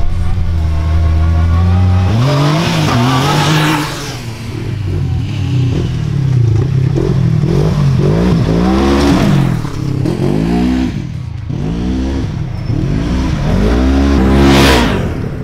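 Several side-by-side UTV engines, a Yamaha YXZ1000R and Polaris 1000s, revving hard in turn as they climb past. The pitch rises and falls over and over with throttle blips, and the last machine is loudest near the end.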